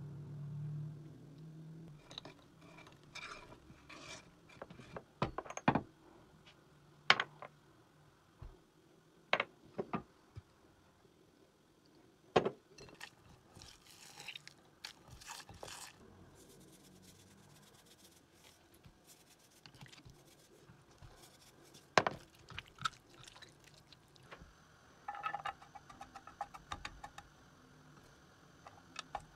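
Kitchen prep handling sounds: scattered sharp knocks and clicks of utensils and dishes, with a stretch of scraping and squishing about halfway through as sliced onion is mixed with oil and spices by hand in a glass bowl.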